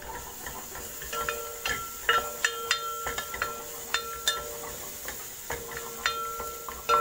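Chopped aromatics sizzling in hot oil in a pot, with a wooden spatula scraping and knocking against the pot many times. Each knock leaves the pot ringing briefly at the same pitch.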